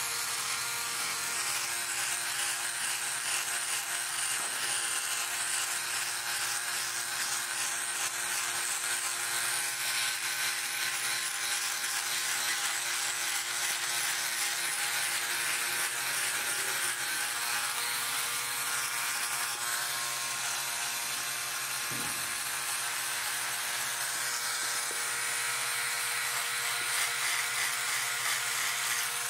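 Philips OneBlade electric trimmer-shaver running steadily, its oscillating blade buzzing as it cuts through foam-lathered stubble, with a barbershop-like sound.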